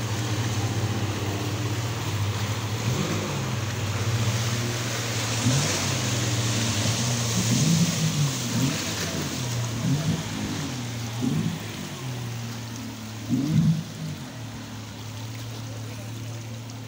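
Outboard motor of an inflatable rescue boat running steadily at speed over churning river water, growing fainter near the end. Voices call out now and then from the bank.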